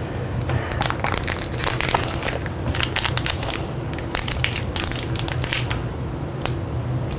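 Foil booster-pack wrapper being crinkled and torn open by hand: a continuous run of irregular crackling rustles.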